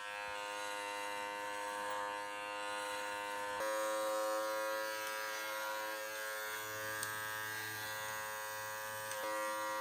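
Electric pet clippers buzzing steadily while trimming a dog's coat, the pitch shifting slightly about a third of the way in and again near the end.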